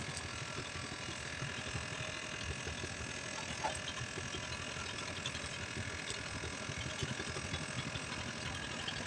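A steady engine hum with a low rumble underneath, unchanging throughout.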